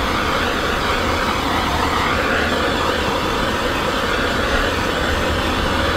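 Handheld gas blowtorch burning with a steady hiss, its flame held on a vinyl graphic decal to soften it for application.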